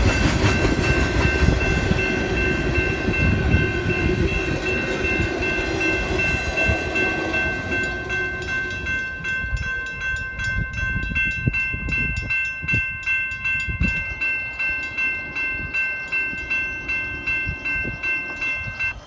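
A double-stack container freight train rumbling and clattering past, its noise fading after several seconds as the tail end rolls away. A railroad crossing bell rings steadily in quick, even strokes throughout and stops abruptly near the end.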